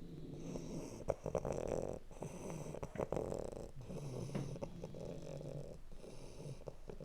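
Two sleeping dogs, one of them a puppy not yet three months old, snoring together. Their rasping snores overlap in an uneven rhythm, each breath lasting a second or two.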